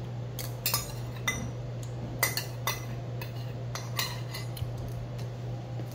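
Metal spoon clinking and scraping against a small stainless steel bowl, several sharp clinks at irregular intervals, over a steady low hum.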